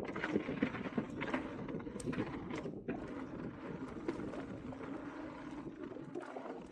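Mountain bike rolling along a dirt trail: steady tyre noise with scattered clicks and rattles from the bike.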